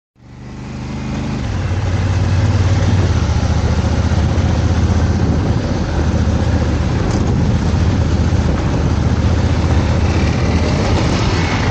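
Dual-sport motorcycle engine running steadily at riding speed, with wind and road noise over it. The sound fades in at the start, and the engine note shifts about a second in.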